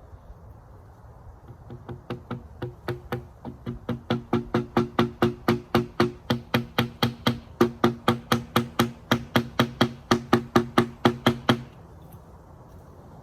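Rapid, evenly spaced hammer blows, about three or four a second with a short ringing note on each, driving shims or wedges under a log to level it. They start lightly, grow louder and stop suddenly near the end.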